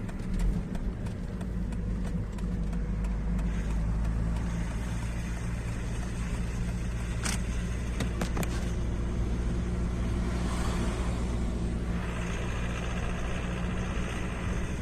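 2006 Volvo S40 1.8i's four-cylinder engine running steadily under load, as when pulling uphill, with a rattle and a few sharp clicks from the car. The rattle under load is not cured by a swirl flap delete on the intake manifold.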